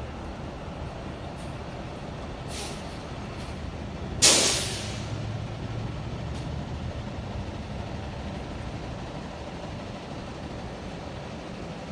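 Steady low traffic hum of a city street. About four seconds in there is a short, loud hiss of released air from a heavy vehicle's air brakes, which fades within half a second, with a fainter hiss a moment before it.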